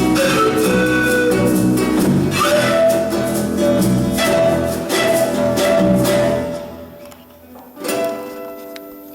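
Instrumental music, strings and plucked notes, dying away about two-thirds of the way in, then one last quieter phrase near the end.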